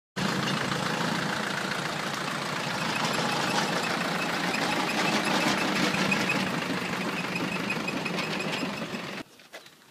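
An engine-driven machine running steadily with a rapid knocking, starting abruptly and cutting off suddenly near the end.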